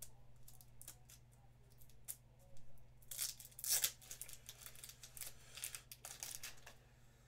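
Plastic card wrapping and sleeves crinkling and rustling as trading cards are handled, with small clicks and taps; the rustling comes louder in bursts about three seconds in and again near the end.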